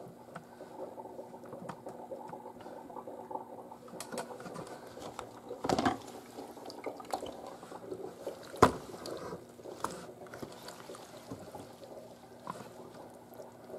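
Soaking-wet shirts being handled and lifted out of a utility sink, with water dripping and splashing off the fabric. Two louder sudden sounds come a little before and a little after the middle.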